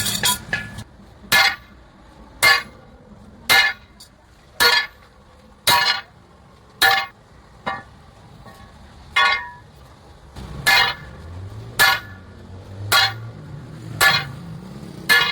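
Hammer blows on steel, about one a second, each with a brief metallic ring, with a short pause about halfway through. A low hum sounds underneath now and then.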